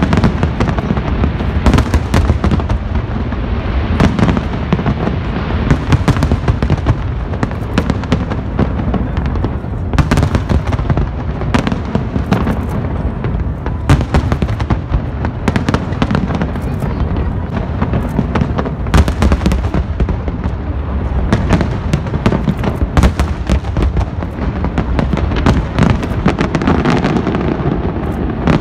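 Fireworks going off in a dense, unbroken barrage of bangs and crackles.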